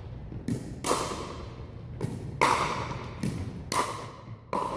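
Pickleball paddles striking a hollow plastic ball and the ball bouncing on the hardwood floor during a rally: about seven sharp pops at uneven intervals, each ringing out in the echo of a large gym.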